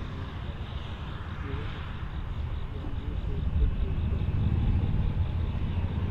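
John Deere four-track tractor's diesel engine running under load as it pulls an air cart and implement through field stubble: a steady low rumble that grows louder over the few seconds.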